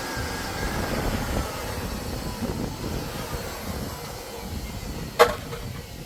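Steady workshop machine noise, a motor whose whine slowly falls in pitch over the first few seconds as it winds down. About five seconds in, a single sharp hammer strike on steel rings out.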